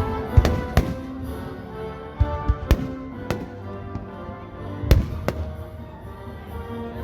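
Fireworks bursting in a string of irregular sharp bangs over music playing, the loudest bangs about half a second in and about five seconds in.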